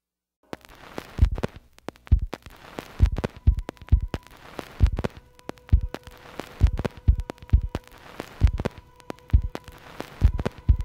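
Opening of a song on the soundtrack: a deep thumping beat about once a second, some beats doubled like a heartbeat, with a steady tone held under it from about three seconds in.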